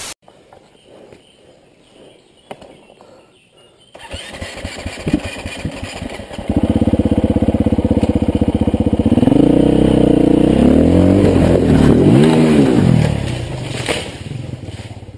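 Dirt bike engine, faint at first, comes in loudly about six seconds in and is revved up and down several times before fading near the end.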